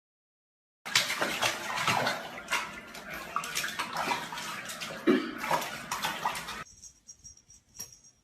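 Water splashing hard and irregularly for about six seconds, then stopping abruptly.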